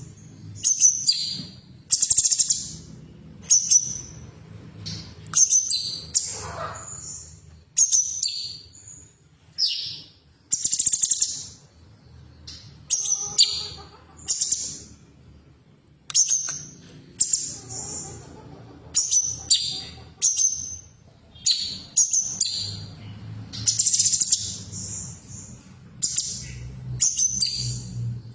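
Female cucak cungkok calling: short, high chirps and whistled notes repeated about once every second or so.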